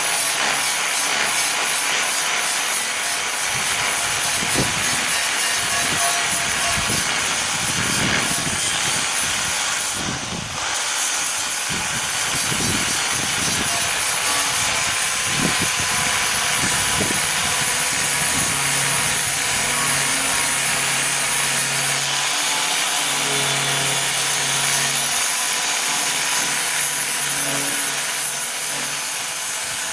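Angle grinder grinding down weld seams on car body metal, a loud continuous harsh grinding hiss that eases off briefly about a third of the way in before carrying on.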